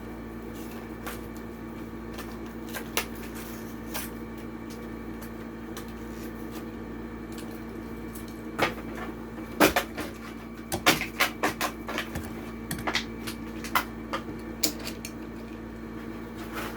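Packaging of a die-cast toy car being handled and pulled open: scattered clicks and crackles of plastic and cardboard, sparse at first, then a busy run of them in the second half. A steady low hum is behind it.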